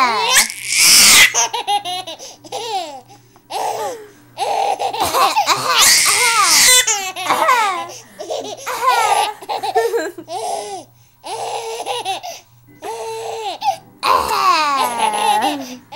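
A baby laughing in repeated high-pitched bursts of giggles and belly laughs. A couple of harsh, noisy bursts come near the start and again around the middle.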